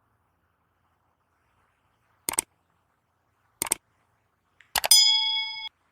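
Two sharp clicks about a second apart, then a third click with a bright bell ding that rings for just under a second and cuts off: a subscribe-button click and notification-bell sound effect.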